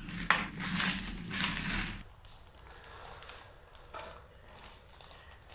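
Plastic courier mailer crinkling and rustling as it is pulled open, loud for about two seconds, then cutting abruptly to fainter rustling of the paper packing inside.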